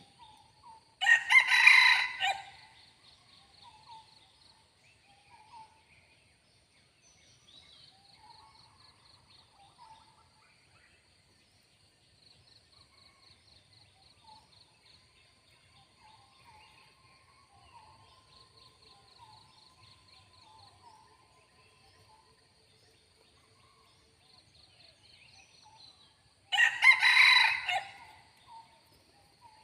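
Red junglefowl rooster crowing twice close by, each crow short and loud, the two about 25 seconds apart, over a steady high insect drone and faint small-bird chirps.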